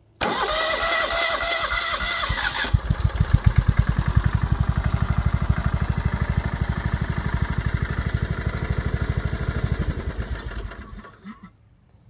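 Riding lawn mower engine cranked by its electric starter, jumped straight across the starter solenoid posts with a wire: the starter whines for about two and a half seconds, then the engine catches and runs with a steady, even beat. It slows and stops near the end.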